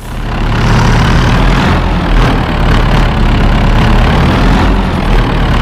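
Wheel loader's heavy diesel engine idling steadily with a deep hum. It cuts in suddenly, loud.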